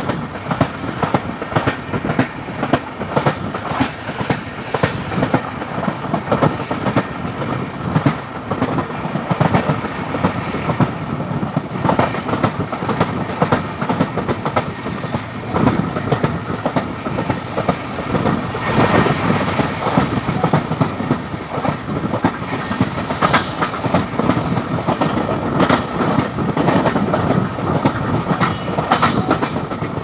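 Track sound of a moving LHB passenger coach: its wheels running over the rails, a steady loud rumble with many short sharp clicks and knocks.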